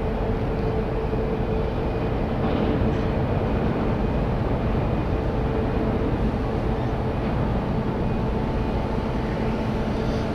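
Large ro-ro passenger ferry Pride of Rotterdam's engines and onboard machinery running at the berth: a steady low rumble with a hum of a few steady tones.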